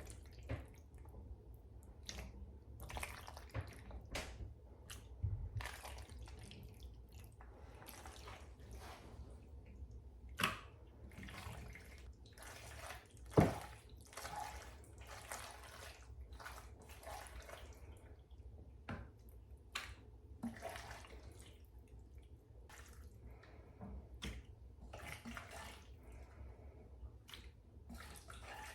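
A spoon scooping thick, creamy chicken pesto pasta into meal prep containers: irregular wet slops and scrapes, with one sharper knock about halfway through.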